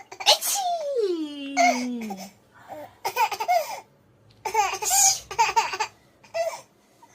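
Young child's belly laughter in repeated fits, broken by short pauses, with a long voice sliding down in pitch about half a second to two seconds in.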